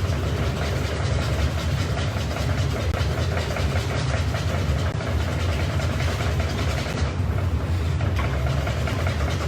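Steady low mechanical hum with a constant hiss over it, the background running of a restaurant kitchen's machinery, holding level throughout.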